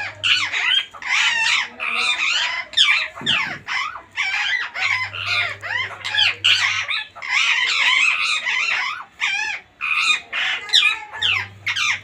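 Rose-ringed parakeets calling in a rapid, almost unbroken string of shrill squawks.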